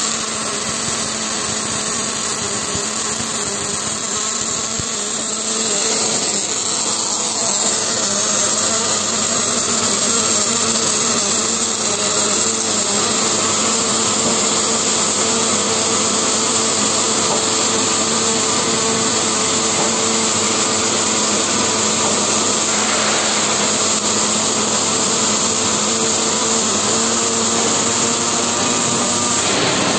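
Robotic arc welding of a flange onto a long steel tube: a steady hissing arc noise from the welding torch, with a steady hum of workshop machinery under it.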